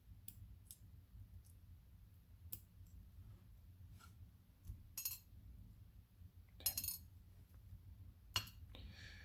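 Small metal lock pins and the lock's core clicking and clinking lightly as the pins are fitted back into their chambers during reassembly. Scattered light ticks, with louder clinks about five, seven and eight and a half seconds in.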